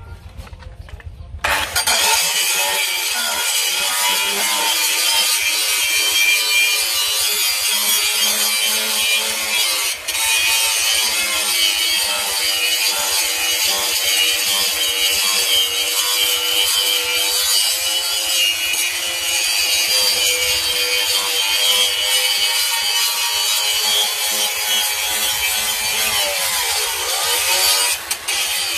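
Handheld electric angle grinder starting up about a second and a half in, then running steadily with its disc pressed into the workpiece, a continuous grinding hiss.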